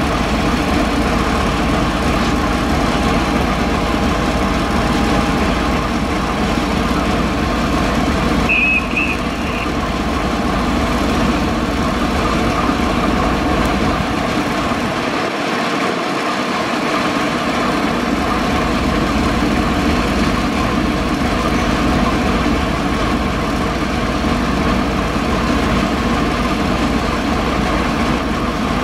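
DB Class V65 diesel locomotive's engine idling steadily with a deep throb. About nine seconds in, a brief high chirp of a few quick pulses sounds over it.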